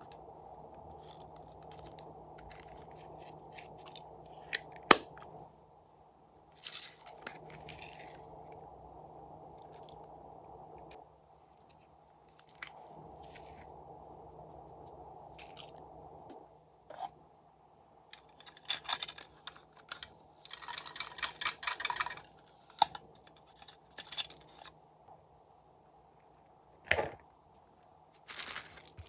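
Slime being squeezed and worked by hand: scattered sticky clicks, crackles and pops, with a denser run of crackling about two-thirds of the way through and a sharp snap near the end.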